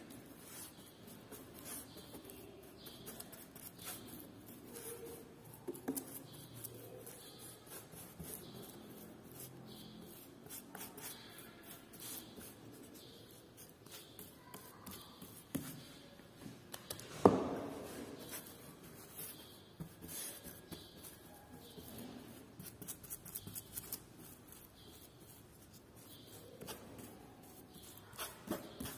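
Applicator rubbing and scraping a grainy gold decorative paint across a flat board in short strokes. A single sharp knock stands out partway through.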